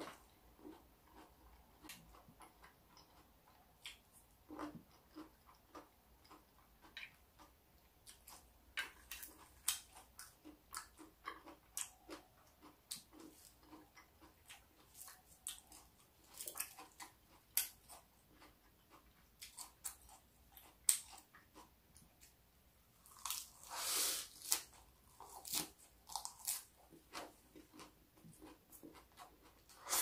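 Close-up chewing of a mouthful of raw salad with avocado and onion: irregular crisp crunches and mouth sounds, with a longer, louder crunching stretch about three-quarters through.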